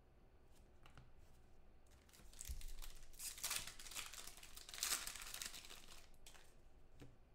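Foil wrapper of a 2015 Spectra football card pack being torn open and crinkled by hand. It starts faintly, grows louder about two seconds in and fades out near the end.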